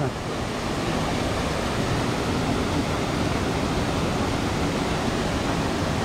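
Steady rushing of a rocky rainforest stream, water flowing over boulders and pouring down a small cascade.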